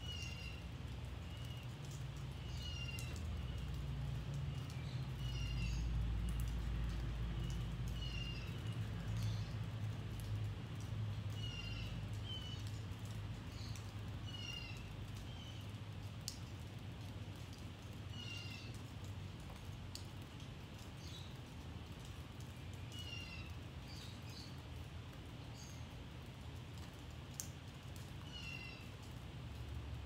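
Birds calling over and over, short chirps every second or two, some with quick runs of falling notes. Water drips from a roof edge in scattered taps during light rain, over a low rumble that is strongest in the first third.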